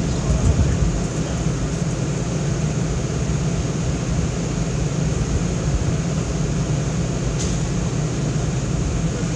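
Steady low rumble of city street background noise, without distinct events.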